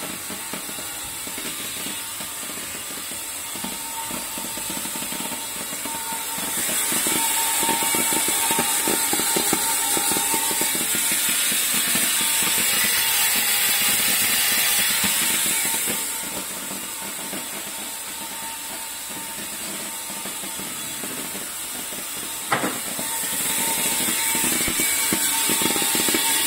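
Mini rice colour sorter running with a steady mechanical rattle and hiss. The hiss grows louder about a quarter of the way in, drops back a little after halfway, and rises again near the end. There is a single sharp knock shortly before the end.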